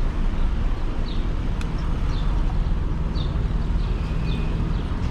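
Steady low rumble of riding a modded fat-tire e-bike along a street, with a few faint, short, high chirps over it.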